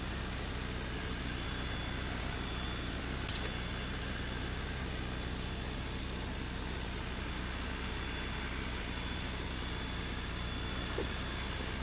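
Creality Falcon 2 22 W laser engraver running a cut in plywood: the steady rush and hum of its air-assist pump and cooling fans, with a faint click about three seconds in.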